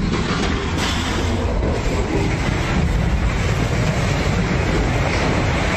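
Steady, heavy rumble of a concrete cooling tower collapsing as it is demolished: crumbling, falling concrete and debris.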